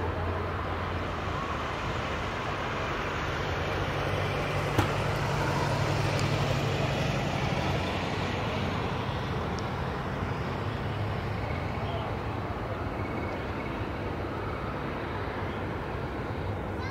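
Steady rumble of aircraft engines with a low hum that swells slightly a few seconds in and then holds. A single sharp click about five seconds in.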